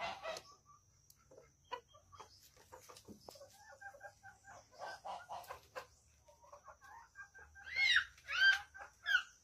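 Chickens clucking softly in short, scattered calls, then three louder, high squawks that rise and fall, about half a second apart, near the end.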